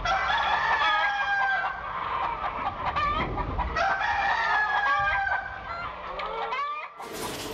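A rooster crowing twice, each crow a long call of about two seconds, with shorter calls between them.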